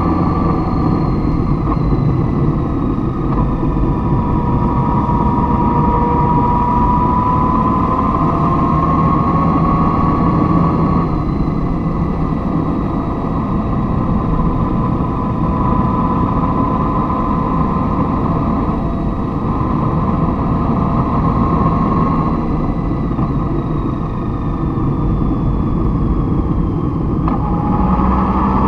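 A motor vehicle driving: steady engine and road rumble, with a faint whine that slowly slides up and down in pitch and drops sharply near the end.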